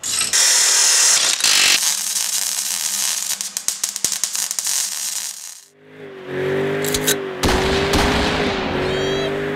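An impact wrench hammering in a rapid rattle for about the first five seconds. After a short dip, the Mustang GT's 4.6-litre three-valve V8 is held at high revs during a burnout.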